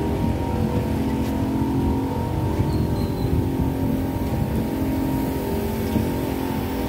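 Steady road-traffic rumble from cars on the street alongside.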